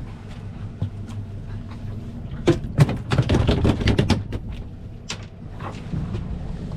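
Fishing boat's engine running steadily under a burst of clattering knocks about two and a half seconds in, lasting under two seconds, with a few more knocks a little later, from fish and tackle being handled on deck.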